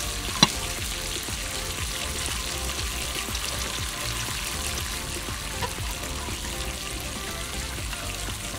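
Small sandwich squares frying in a miniature steel pan of hot oil, sizzling steadily, with one sharp clink of metal tongs against the pan about half a second in.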